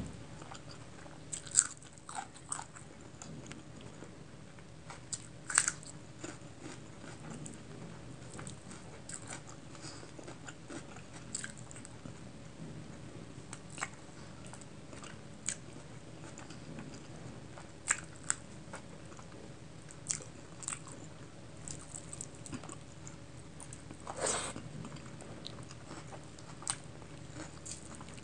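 Close-miked chewing and wet mouth sounds of eating chicken curry and rice by hand, with scattered sharp smacks and clicks and a longer smacking sound near the end.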